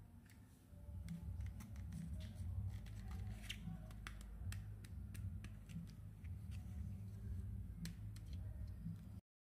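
Small plastic clicks and taps as a pink plastic toy comb is picked up and handled close to the microphone, over a low handling rumble. The sound cuts off suddenly near the end.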